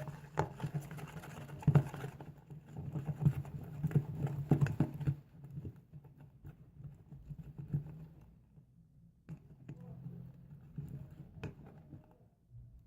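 PVA-glue slime being stirred in a small container as borax glycerin activator is worked in: irregular sticky clicks and taps, busy for about the first five seconds, then sparser. A faint steady low hum runs underneath.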